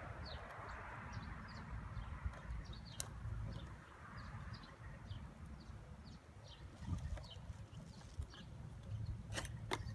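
Outdoor ambience with wind rumbling on the microphone and small birds chirping in quick short notes, while a few sharp clicks and knocks, clustered near the end, come from the metal feeder can being worked out of a package of honey bees.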